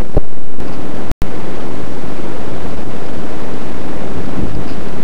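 Loud wind buffeting the microphone, a steady rushing noise that drops out for an instant about a second in.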